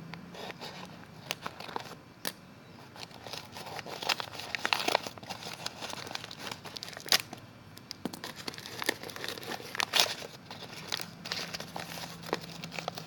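Packaging crinkling and tearing as a parcel is opened by hand: irregular sharp rustles and crackles, loudest around the middle and again near ten seconds in.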